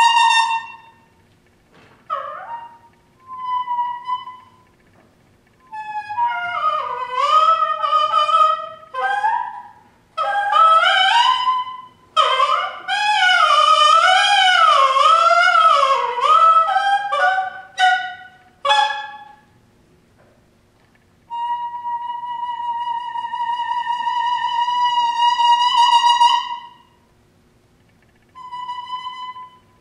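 Solo saxophone playing phrases broken by pauses. It starts on a held note, then short notes, then a long passage where two wavering pitches sound at once. A long held high note follows and a short note near the end.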